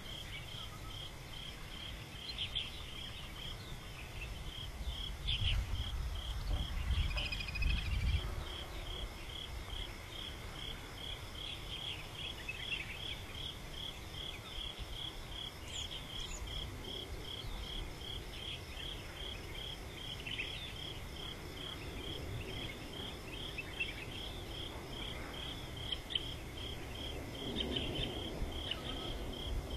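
Insects chirping in a steady, evenly repeating pulse, with a brief low rumble about five to eight seconds in.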